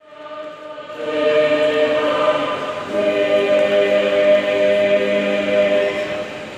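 Small mixed-voice choir singing a cappella in long held chords. It grows louder about a second in, moves to a new chord about three seconds in, and dies away near the end.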